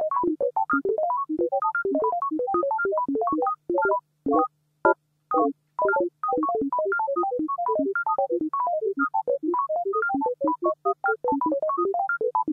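Synthesized notes from a Pure Data patch that simulates pendulum motion, one short note at a time at many different pitches, tumbling in rising and falling runs. Around the middle the notes thin out and land together in a few sparse chords before the dense runs return. A faint steady low hum runs underneath.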